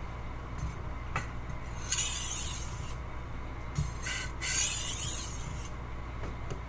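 A steel chef's knife blade drawn across a sharpening stone in a few separate hissing, rasping strokes, the longest about two-thirds of the way through.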